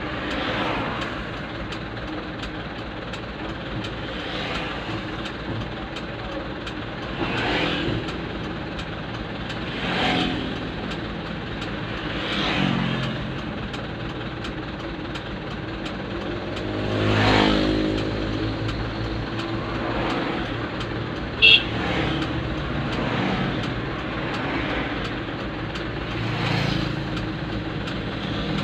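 Road traffic passing a stopped truck, heard from inside the cab: cars and motorcycles go by one after another, each swelling and fading, the loudest about two-thirds of the way in. A steady low hum runs underneath, and there is a short high beep a few seconds after the loudest pass.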